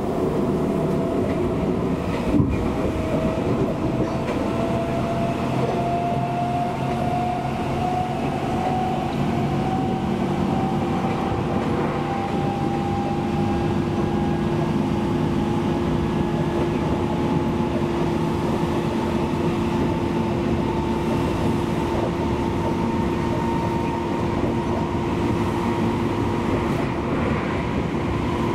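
Electric commuter train running on the Seibu line, its motor whine rising slowly and steadily in pitch as it picks up speed, over a steady lower hum and rail running noise. A single sharp click about two seconds in.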